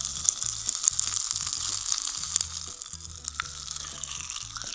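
Popping candy crackling and fizzing in a mouth: a steady fine crackle.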